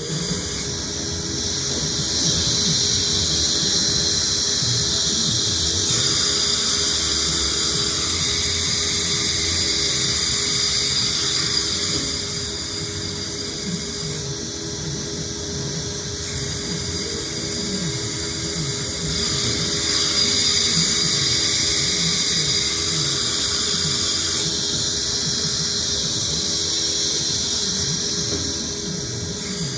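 A 1990 MAHO MH 1200 S CNC machining centre running, with a high-pitched whine over a loud hiss. It is louder for two long stretches, from about a second and a half in to twelve seconds and again from about nineteen seconds until shortly before the end, and quieter in between.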